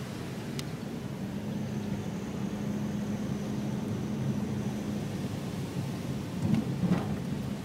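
Car cabin noise while driving slowly: a steady low rumble of road and engine, with two short thumps near the end.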